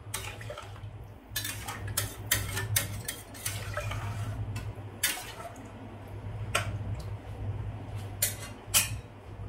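Metal spoon stirring liquid in an aluminium pressure cooker, clinking and scraping against the pot's sides and bottom: a busy run of knocks in the first few seconds, then single clinks every second or so.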